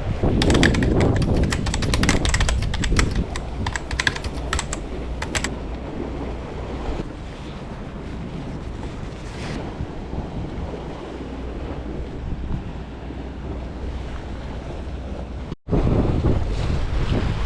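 Strong wind buffeting the microphone, a steady low rumble. For the first few seconds a quick run of sharp clicks and rattles sits over it, and about three-quarters of the way through the sound drops out for an instant before the wind comes back louder.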